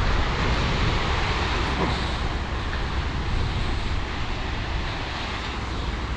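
Wind buffeting the microphone: a steady rumbling rush with hiss, easing a little in the second half.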